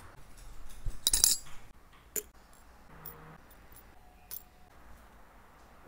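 Small metallic clicks and clinks of watch movement parts and tweezers being handled, with a dense cluster about a second in and single light clicks after.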